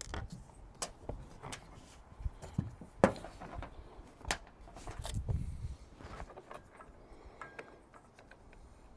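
Scattered sharp clicks and knocks of roof-rack basket mounting hardware (metal brackets and clamps) being handled and fitted onto a crossbar, the loudest knock about three seconds in and a duller thud a couple of seconds later.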